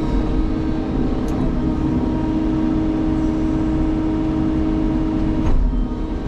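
Sany excavator's diesel engine and hydraulics running a Vosch harvester head, a steady hum with a strong whine. The whine cuts off abruptly with a sharp click about five and a half seconds in.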